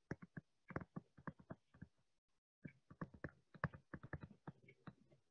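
Faint, irregular taps and clicks of a stylus writing on a tablet screen, with a short pause about two seconds in.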